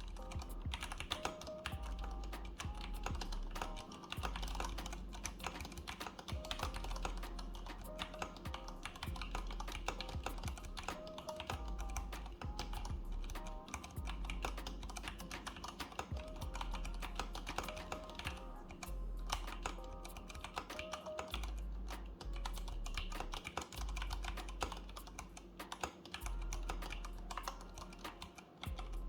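Rapid, continuous typing on an IQUNIX A80 mechanical keyboard with Cherry MX Brown switches, a dense stream of key clacks. A beat with deep bass notes plays underneath.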